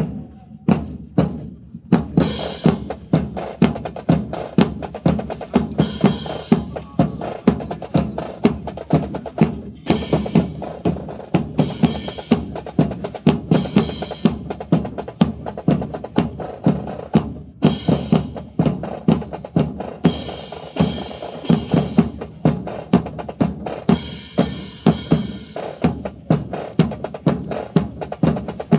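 Marching drums playing a steady cadence of bass and snare strokes, several a second, with louder crashes every few seconds.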